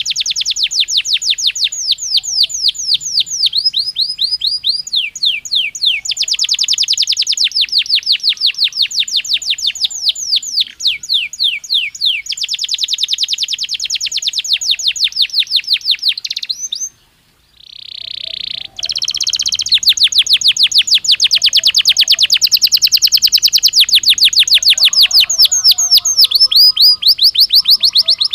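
Belgian canary singing long, rapid trills of fast repeated notes, changing from one rolled phrase to the next. There is a brief pause about two-thirds through, then a louder trill.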